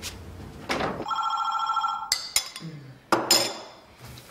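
Telephone ringing once, a single electronic ring of about a second, followed by a few sharp clicks and a short clatter as the handset is picked up.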